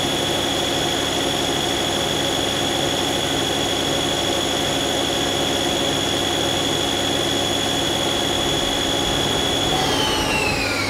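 Mazak Quick Turn 10N CNC lathe running steadily while its boring bar cuts the inside of a part, with a high steady spindle whine. Near the end the whine drops in pitch as the spindle slows at the end of the boring pass.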